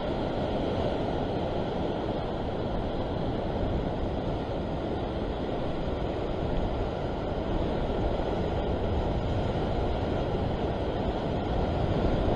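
Ocean swell surging and foaming against a rock ledge: a steady, low rushing noise.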